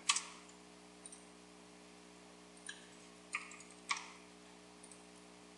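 A few sparse, separate clicks of computer keyboard keys and a mouse, as a port number is typed and submitted, over a faint steady electrical hum.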